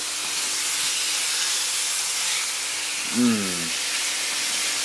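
Marinated chicken pieces, onion and garlic sizzling in a hot wok, a steady hiss as the food is stirred with a wooden spatula. A short hummed vocal sound comes about three seconds in.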